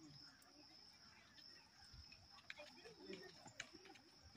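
Near silence: faint outdoor background with a steady high-pitched whine, a few light clicks, and faint distant voices in the second half.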